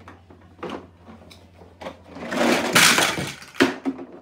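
Large plastic toy building blocks clattering down onto a carpet: a few single knocks, then a loud, dense clatter about two seconds in lasting about a second, and one more knock near the end.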